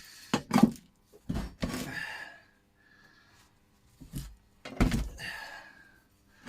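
A series of heavy knocks and thunks of a steel railway-track section being struck or handled, about seven in all, some with a short metallic ring after them.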